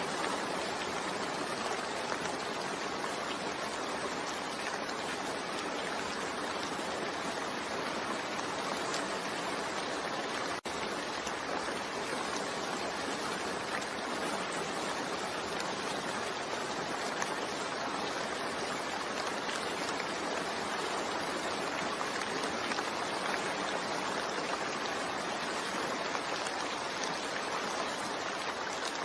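Steady rain ambience, an even hiss of rainfall with no change in strength, broken by a split-second dropout about ten seconds in.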